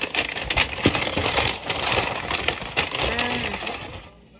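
Brown paper bag rustling and crinkling as it is opened and a vacuum-sealed plastic pack is pulled out of it, dying away near the end.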